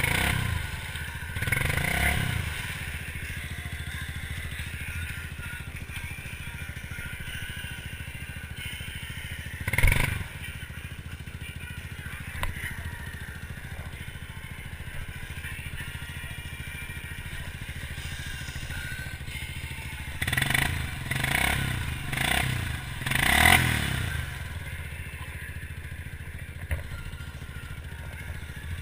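Quad ATV engine running steadily, with a few short throttle blips as the machine sits hung up on a log in swamp mud. There is a single sharp clunk about ten seconds in, and a cluster of four quick revs near the end.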